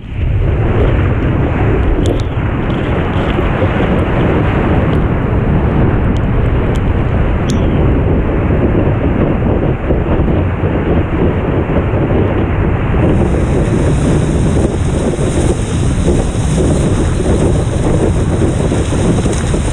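Steady loud rush of wind on a board-mounted camera's microphone and water rushing past a surfboard as it rides a wave. A thin higher hiss joins about two-thirds of the way through.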